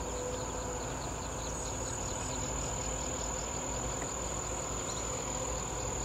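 Insects calling in a continuous high-pitched drone, with a scatter of fainter, lower chirps running through it.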